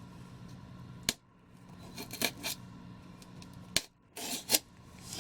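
Statue packaging being handled: a few sharp clicks and short scraping, rustling bursts, over a steady low hum.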